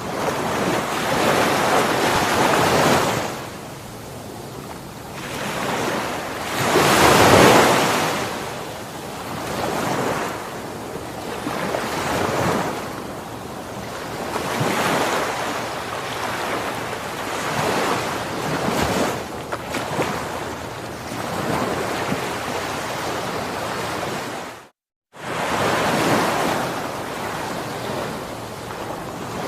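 Ocean waves washing onto a shore in repeated surges that swell and ebb every few seconds, the biggest about seven seconds in. Near the end the sound cuts out completely for about half a second, then resumes.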